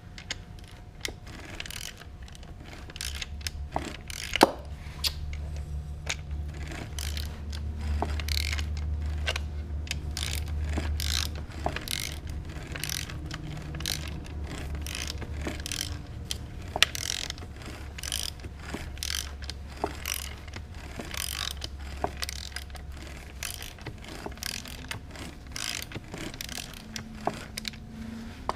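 Yamaha R6 engine running, with rapid, irregular knocking and clicking several times a second over a steady low hum.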